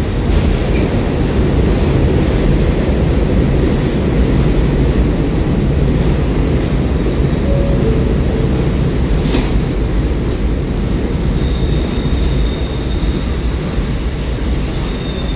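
Kawasaki R211A subway train standing at the platform with a steady low rumble, while its doors close. Short tones sound about halfway through, and a single knock comes about nine seconds in as the doors shut. Faint high tones follow near the end.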